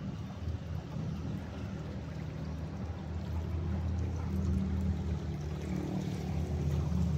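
Water running steadily with a low rumble underneath, growing a little louder toward the end.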